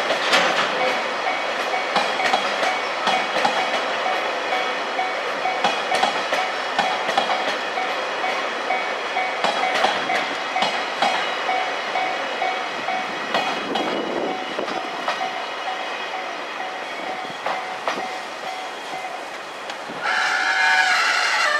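Freight train of empty container flat wagons passing, its wheels clacking over rail joints, while a level-crossing warning bell keeps ringing. Near the end a louder pitched ringing sound comes in.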